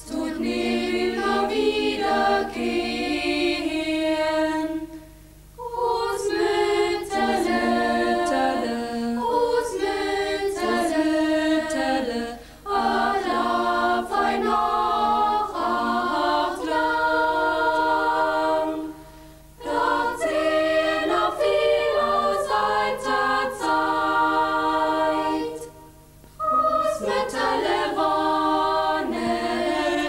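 A choir singing a song in long phrases of about six to seven seconds, each broken off by a short pause before the next.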